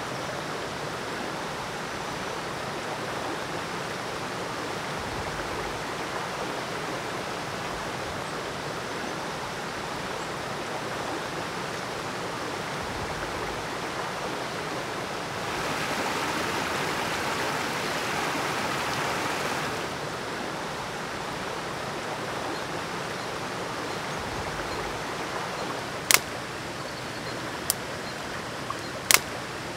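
Shallow river rushing steadily over rocks, louder for a few seconds midway. Near the end, a few sharp snaps of dry twigs breaking.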